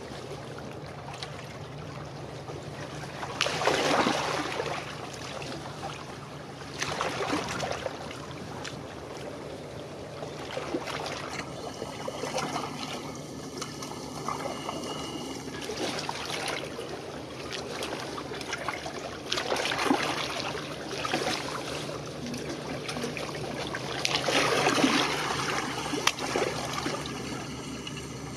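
Small waves washing against the shore, a swell of water noise every few seconds, over a steady low drone from the passing container ship.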